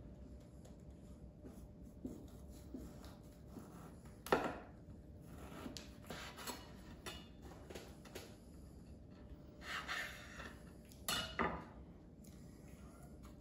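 Kitchen knife cutting slices from a piece of bresaola on a wooden cutting board, the blade tapping and knocking against the board. The sharpest knock comes about four seconds in, and two more come close together near the end.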